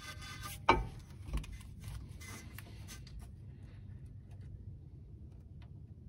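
Faint handling noises: a large nylon zip tie rasps briefly through its ratchet at the start, then a sharp knock and a few lighter knocks and clicks come as the brake caliper is handled and hung.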